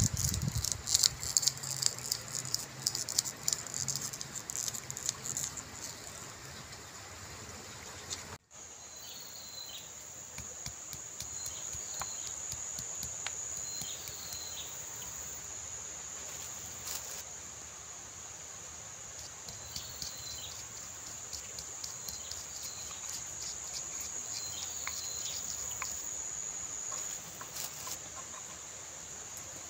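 Crackling and snapping of fresh lamtoro (petai cina) pods being split and peeled by hand for the first eight seconds. After a cut, a steady high drone of crickets or other insects with repeated short bird chirps, and a few sharp knocks of a stone pestle working spices in a stone mortar.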